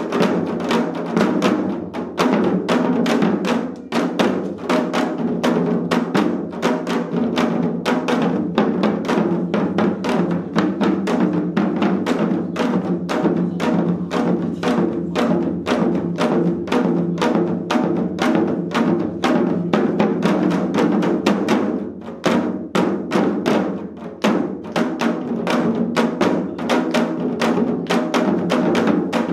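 Four janggu, Korean hourglass drums, played together in a fast, dense seoljanggu rhythm, sharp stick strokes packed over deeper drum tones. The strokes thin out briefly about three-quarters of the way through, then pick up again.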